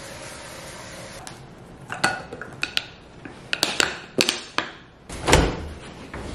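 A run of sharp clicks and knocks, then a louder dull thump with a rustle about five seconds in, as laundry is handled at a front-loading dryer.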